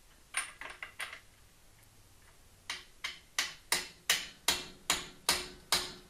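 Hammer tapping on a 1-inch socket to drive a sealed cartridge bearing into a Gary Fisher Evolution press-fit bottom bracket shell: a few light taps about half a second in, then a steady run of sharper metallic strikes, about two and a half a second, from nearly three seconds in.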